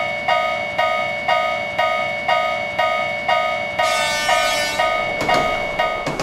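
Level-crossing warning bell ringing 'kan kan' at about two strikes a second, with a steady high tone held under it. A brief hiss comes in about four seconds in.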